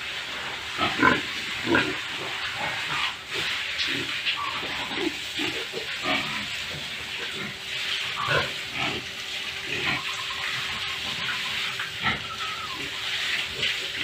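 Domestic pigs grunting and snuffling in short, irregular bursts over a steady hiss of water spraying from a hose, with a faint steady hum underneath.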